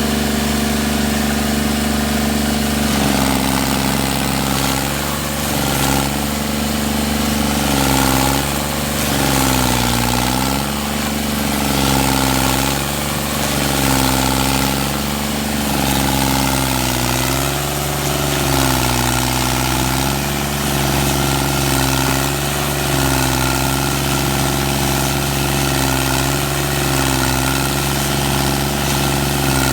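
Carlton 4400 stump grinder's engine running hard. From about three seconds in, its pitch dips and recovers again and again, every second or two, as the load comes on and eases off.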